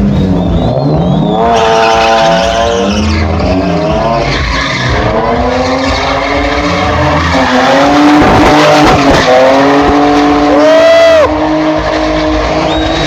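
Car engine revved hard again and again, its pitch climbing and falling as a car drifts, with tyres squealing and skidding on the pavement; a high squeal about ten seconds in.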